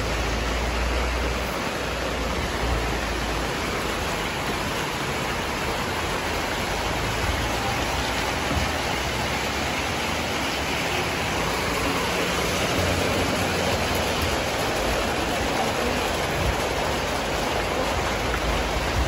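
Steady rain falling on a wet street, with water running through a concrete roadside drain. A low rumble sits under it for the first couple of seconds.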